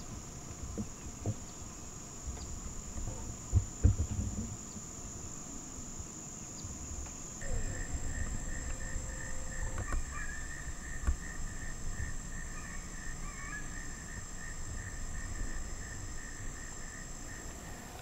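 Steady chorus of insects: a continuous high-pitched trill, joined about seven seconds in by a lower pulsing trill. A low rumble sits underneath, with a couple of low thumps about three to four seconds in.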